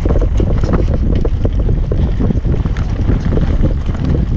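Wind buffeting a helmet-mounted GoPro during a fast mountain-bike descent, with a steady low rumble from the tyres rolling over dirt and rock. Frequent small clicks and rattles from the bike and stones run through it.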